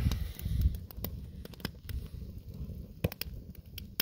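Campfire of freshly lit split kindling crackling, with sharp pops at irregular intervals, several close together about three seconds in, over a low rumble.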